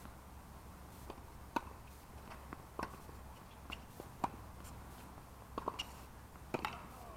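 Scattered, faint, sharp knocks of tennis balls bouncing and being hit on a hard court, over a low steady outdoor background.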